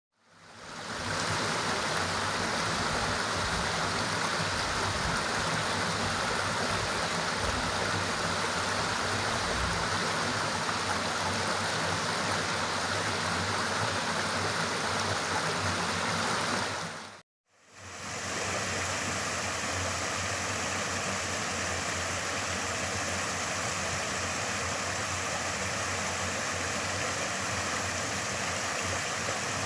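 Steady rush of flowing water. It fades in at the start, breaks off briefly about 17 seconds in, then returns as a second steady stretch of rushing water with a slightly different tone.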